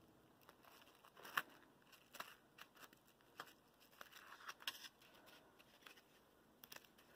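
Near silence with faint, scattered rustles and light taps of fingers pressing and rubbing burlap ribbon down around the edges of a foam-board sign.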